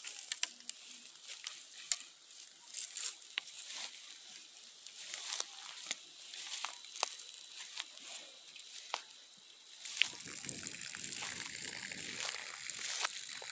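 Rustling and crackling in grass and dry stalks, with sharp irregular clicks throughout and a low rumble for a few seconds near the end.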